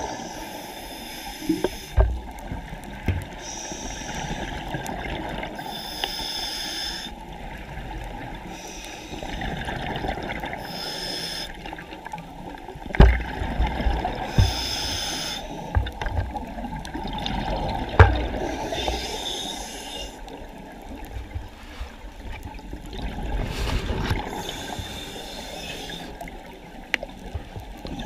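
Water sloshing and trickling, with bursts of high hiss that come and go every second or two and a few sharp knocks, the loudest about halfway through and again a few seconds later.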